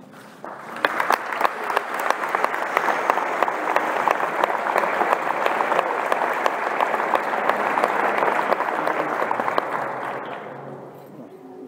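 An audience applauding a speaker who has just been introduced. The clapping starts about half a second in, holds steady, and dies away near the end.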